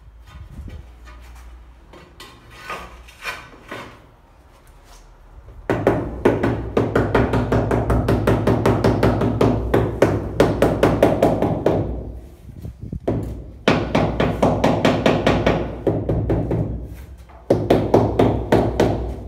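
Rubber mallet tapping rapidly on a large stone-effect ceramic wall tile to bed it into tile adhesive, in three runs of quick, even taps, the first starting about six seconds in. Before that come a few quieter knocks from the tile being handled.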